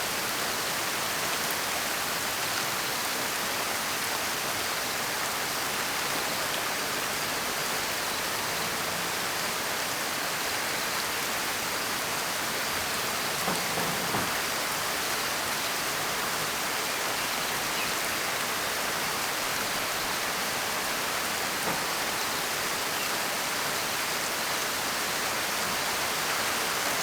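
Steady heavy rain falling as an even hiss, with a few slightly louder drops about halfway through.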